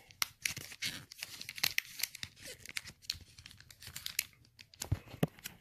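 Foil wrapper of a Pokémon booster pack being torn open and crinkled by hand: a run of irregular rips and crackles, with a couple of soft thumps near the end.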